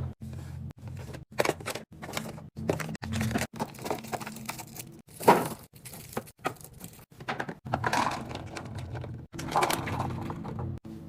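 Food containers and packages being handled and set down while a fridge is restocked, giving a series of sharp clicks and knocks over a low steady hum.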